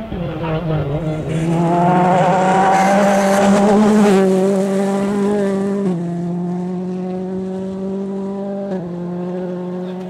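Rally car engine running at high, fairly steady revs, its pitch stepping down slightly about six seconds in and again near nine seconds.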